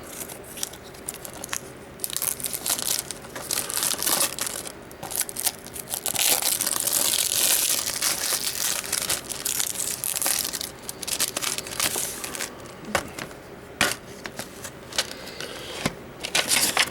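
A 4K/Blu-ray disc package being unwrapped by hand: wrapping crinkling and tearing, loudest in a long rustle a few seconds in, with many sharp clicks and taps of the case and slipcover being handled.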